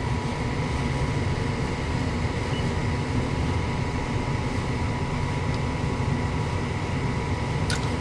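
Lennox EL180 furnace's draft inducer blower running steadily with a faint whine. Near the end comes a single sharp click, the odd click that seems to come from the gas valve, which is getting 0 volts as the furnace fails to light.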